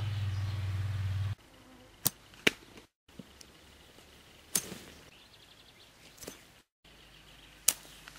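A steady low hum cuts off abruptly just over a second in. Then come several sharp knocks, a second or two apart, from metal tent pegs being pushed and struck into grassy ground.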